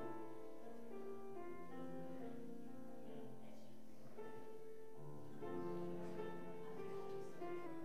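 Slow instrumental church prelude music, held chords changing about once a second.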